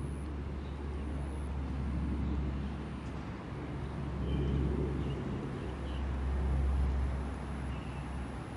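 Steady low outdoor background rumble, swelling and easing a little, with a few faint short high tones in the middle and near the end.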